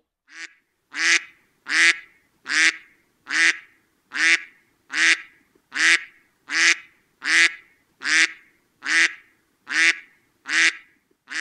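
A short nasal honk repeated at an even beat, about fifteen times, a little under one a second; the first honk is quieter.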